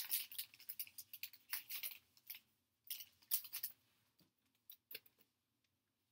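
Plastic wrapper of a baseball card pack being torn open and crinkled, a run of crackling rustles over the first few seconds. A few soft clicks follow as the cards are pulled out and handled.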